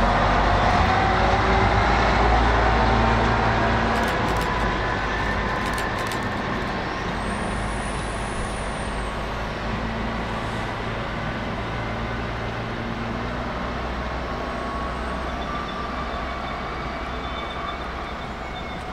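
Tka7 rail truck's diesel engine running as the track vehicle drives off along the rails, its sound fading steadily as it moves away.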